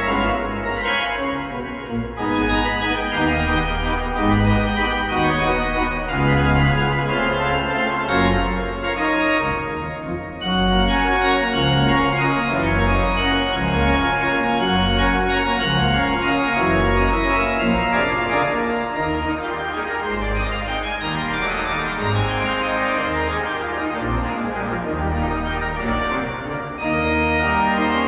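Goll pipe organ (1996) playing a waltz: sustained chords over a bass line that moves every second or so, with the pedal notes sounding deep and full.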